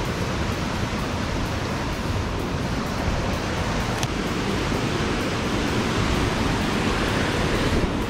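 Steady rushing of a rocky river's white-water rapids, growing a little louder toward the end.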